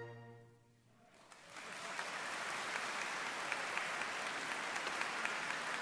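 An orchestra's final sustained chord dies away, and about a second later an audience bursts into applause that goes on steadily.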